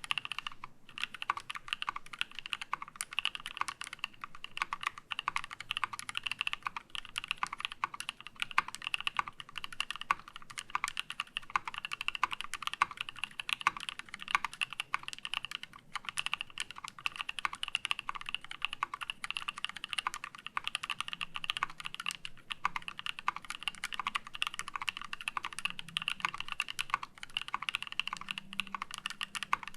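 Fast, steady typing on a KEY65 mechanical keyboard with lubed NK Cream linear switches on a titanium plate, a dense run of keystroke clacks with a couple of short pauses.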